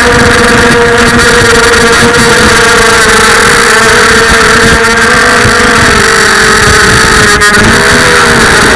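FPV freestyle quadcopter's brushless motors whining steadily, the pitch wavering slightly up and down with the throttle.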